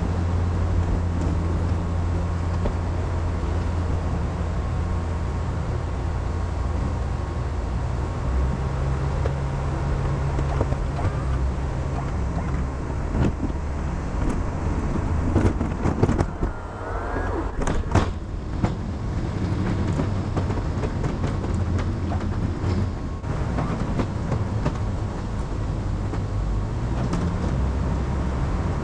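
Pickup truck engine working under plow load, its pitch shifting as the throttle changes while it pushes snow. A few sharp knocks and clunks come about halfway through.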